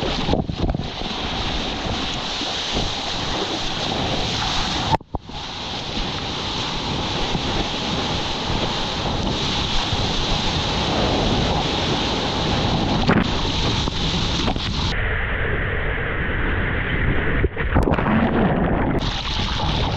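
Wind buffeting and the rush and splash of seawater and whitewater on a surfboard-mounted action camera's microphone. The noise is steady and loud, breaks off briefly about five seconds in, and turns muffled for a few seconds near the end as the camera goes into the foam.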